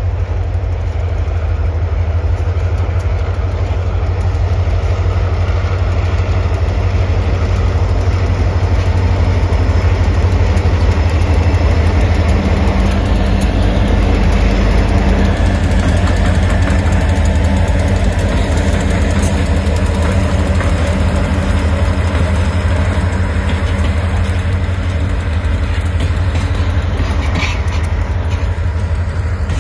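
Freight train's diesel locomotive approaching and passing close by, its engine running with a heavy, steady rumble that is loudest as the locomotive goes past. Near the end, sharp clicks as the freight cars roll by.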